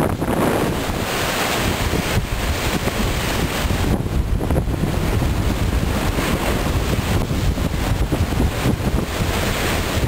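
Strong storm wind gusting and buffeting the microphone, with rough surf washing ashore underneath. The noise is loud and unbroken and rises and falls with the gusts.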